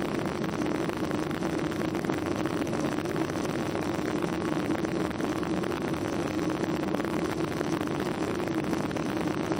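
Steady cabin noise of a Boeing 737-800 in flight: rushing air and engine drone with a constant low hum, unchanging throughout.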